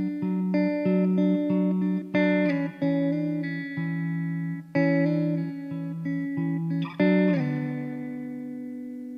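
Background music: guitar playing plucked notes and chords, ending on a chord struck about seven seconds in that rings on and slowly fades.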